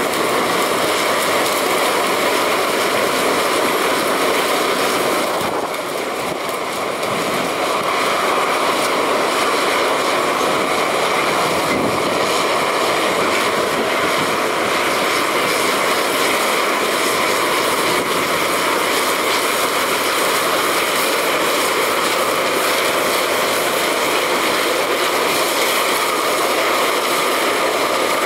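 Sugarcane harvester running steadily as it cuts and chops cane and blows the billets into a tractor-drawn wagon: a loud, even machine drone that dips briefly about six seconds in.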